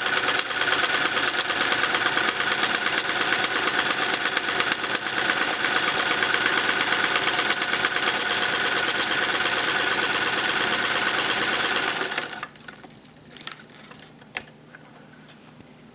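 Vintage Singer 128K sewing machine stitching at a fast, even rate, its needle and mechanism making a dense run of clicks. It stops about twelve seconds in, followed by a few light clicks and one sharp click.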